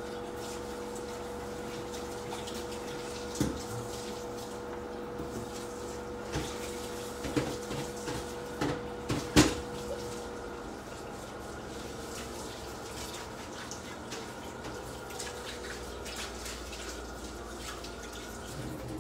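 Lamb offal sizzling in a frying pan on an induction hob: a steady hiss over a steady hum. A handful of sharp clinks and knocks sound between about three and ten seconds in, the loudest near the middle.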